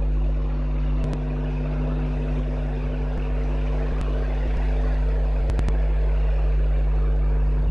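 Steady background hum with a few level tones under an even noise, with a few faint clicks about a second in and around four and five and a half seconds.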